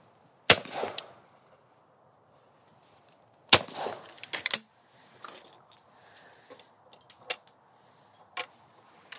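Two shots from a 12-bore Miroku MK70 over-and-under shotgun at clay targets, about three seconds apart, each a sharp crack with a short echo. Lighter metallic clicks and clinks follow as the gun's action is worked, with a last sharp click near the end.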